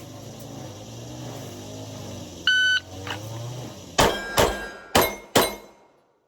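A shot timer's start beep, then four pistol shots about three seconds later, fired as two pairs: two quick shots about 0.4 s apart, a short pause, then two more. This is a two-target transition drill, run in 2.88 seconds with 0.4 s splits.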